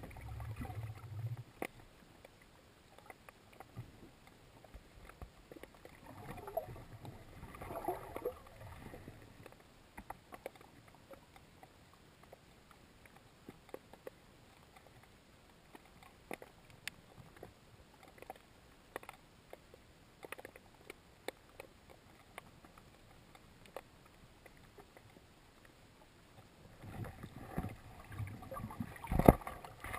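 Underwater ambience: scattered sharp clicks and crackles, with surges of water rush and low rumble at the start, around eight seconds in, and loudest near the end.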